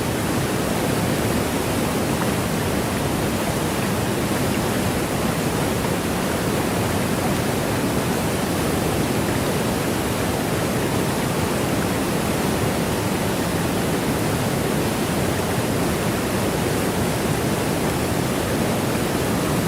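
Waterfall rushing, a steady unbroken wash of falling water that does not change in level.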